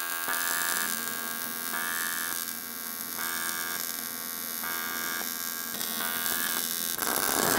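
AC TIG welding arc on an aluminium cylinder head, a steady electric buzz that swells and falls in a regular pulse a little over once a second, set by the welder's pulse setting.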